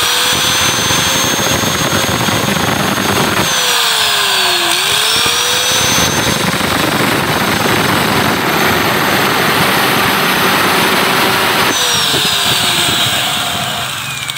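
Angle grinder with a cut-off disc cutting the stem of a motorcycle engine valve that spins in a drill chuck, grinding noise over both motors' hum. The grinder's whine dips briefly about four seconds in as the disc bites, recovers, then winds down from about twelve seconds in as it is lifted off.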